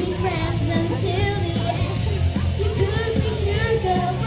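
Upbeat pop music with a steady beat and singing, accompanying a group dance number.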